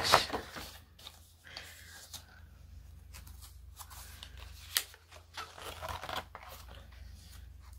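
Thick paper pages of a disc-bound photo journal being turned and smoothed by hand: soft rustling and scattered light taps, with one sharper tap about five seconds in.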